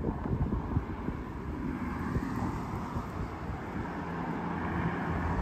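Steady road traffic noise from nearby cars, growing a little louder near the end, with an engine hum joining about four seconds in.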